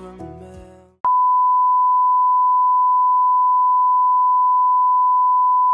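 A sung pop ballad fades out, then about a second in a continuous electronic beep starts abruptly: one pure, steady, unwavering tone held without a break.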